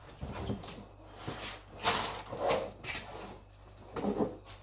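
Grocery packaging being handled: short rustles and light knocks as items are picked up and set down.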